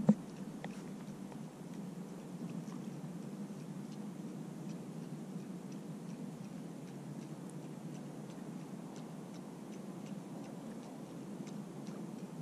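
Low steady wash of water against kayak hulls, with light irregular ticks and clicks throughout and one sharp knock right at the start.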